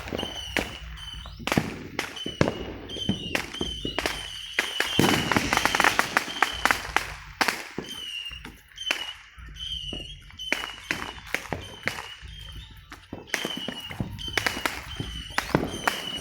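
Fireworks going off all around: many sharp bangs and crackling pops, densest in a burst a few seconds in. A short high chirp repeats about once a second.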